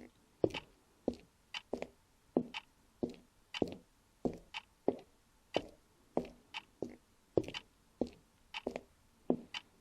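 Regular sharp taps, a little under two a second, uneven in strength, some doubled, each with a short echo.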